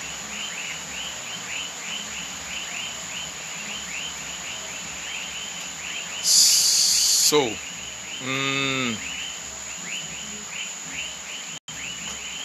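Chorus of chirping insects, about three chirps a second, over a steady high whine. About six seconds in there is a loud hiss lasting about a second, followed by a brief low voiced sound.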